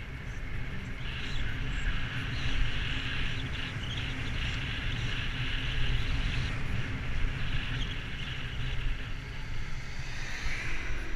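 Wind rumbling on the microphone of a camera on a moving bicycle, over a steady hiss of the tyres rolling on asphalt. An oncoming car passes near the end.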